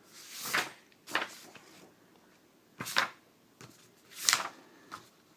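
Pages of a picture book being turned and handled, four quick swishing page flips, with the last one the loudest.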